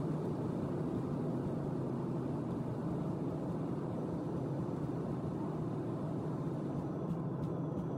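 Steady cabin noise inside a jet airliner rolling out along the runway after landing: a low, even hum of the turbofan engines and airflow that holds level throughout.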